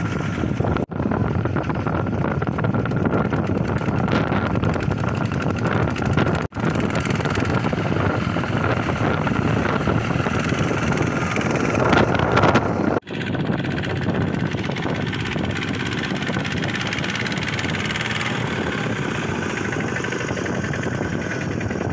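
Kubota ZT155 two-wheel tractor's single-cylinder diesel engine running steadily under load while it hauls a trailer of rice sacks through deep mud. It is briefly louder about twelve seconds in, and the sound drops out for an instant three times, near the start, about six seconds in and about thirteen seconds in.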